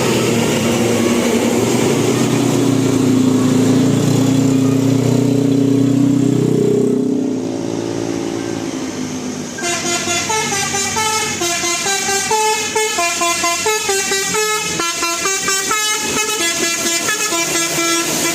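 A bus's telolet basuri melody horn playing a fast tune of short stepping notes, starting abruptly about halfway through. Before it, a loud low rumble of heavy traffic.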